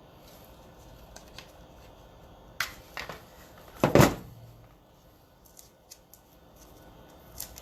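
Small tools and parts being handled on a workbench: a few sharp clicks, then a louder knock about four seconds in, and a few light clicks near the end.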